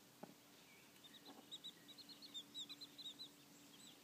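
Chicks peeping faintly: a quick run of short, high chirps starting about a second in, with a couple of soft low clucks from a hen early on.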